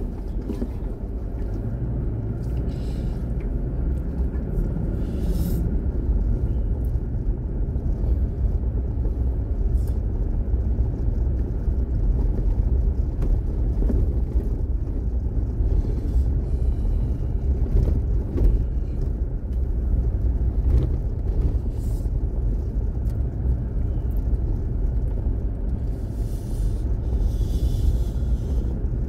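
Steady low rumble of a vehicle driving slowly on a dirt road, heard from inside the cab, with scattered small clicks and rattles.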